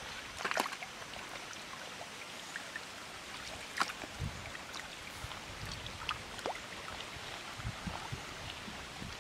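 Shallow stream water trickling steadily over pebbles and around rocks, with a few brief sharp ticks, the loudest just under four seconds in.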